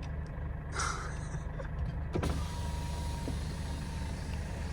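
GAZelle Next van's engine idling with a steady low rumble while the cab's electric window is wound down: a click a little after two seconds in, then a faint motor whine for about two seconds as outside hiss comes in.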